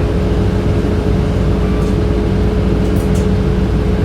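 Heating and air-conditioning system of a 2007 Orion VII city bus running, heard from inside the cabin: a steady whirring drone with a constant mid-pitched hum over the low rumble of the bus underway.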